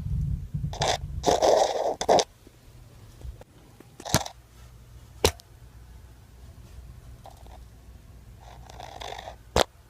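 A camera on a selfie stick rubbing and scraping against wall paneling as it is pushed behind it, with a low rumble and rubbing in the first two seconds, then three sharp knocks spread through the rest.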